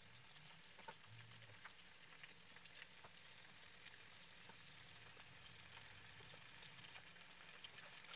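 Raw chicken pieces frying in oil in a nonstick pan: a faint, steady sizzle with scattered small crackles.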